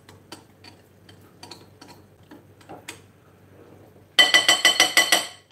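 Metal fork mixing a liquid marinade in a glass mixing bowl: faint scrapes and clicks, then, about four seconds in, a fast run of clinks against the glass, about seven a second, with the bowl ringing.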